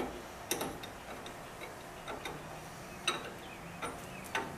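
Scattered light clicks and knocks, about six in four seconds, from hands handling parts at the rear of a motorcycle.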